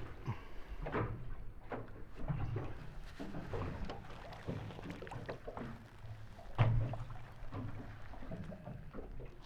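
Small fishing boat on the water: low wash and lapping against the hull under scattered knocks and clatters of gear and fish handling on board, with one louder knock about two-thirds of the way through.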